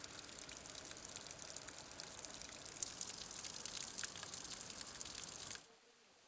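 Water trickling and splashing onto rock, a steady hiss full of small quick splashes. It cuts off suddenly about five and a half seconds in, leaving only a faint hiss.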